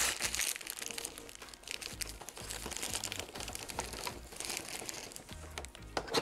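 Plastic wrapping crinkling in the hands as a body-scrub glove is unwrapped and pulled on, then the rustle of the advent calendar's cardboard as the next door is opened, with a sharp crack just before the end.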